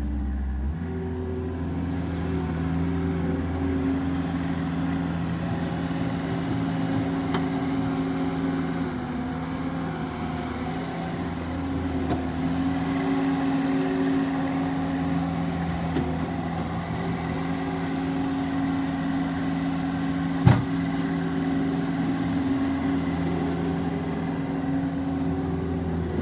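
Gehl V270 skid steer's diesel engine running steadily. Its speed steps up just under a second in and then holds, with one sharp clank about twenty seconds in.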